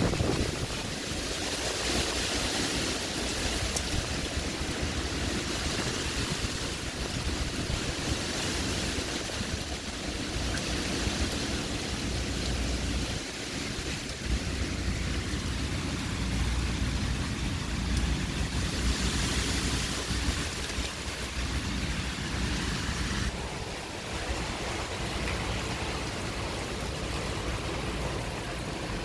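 Wind and heavy rain at the height of a hurricane: a steady rushing noise that swells in gusts a few times, over a low rumble.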